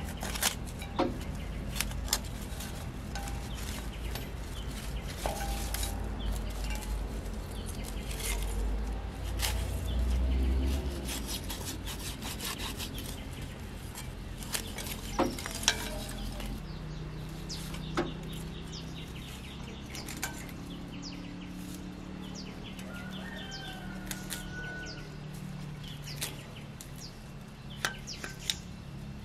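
Knife cutting and tearing dry straw and roots tangled around the shaft of a tractor rotary tiller, with scattered sharp clicks of metal against the steel tiller blades.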